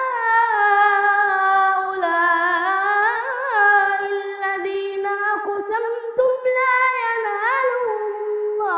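A boy's solo voice giving melodic Quran recitation, drawing the syllables out into long held notes that slide up and down in pitch, with only short breaks for breath.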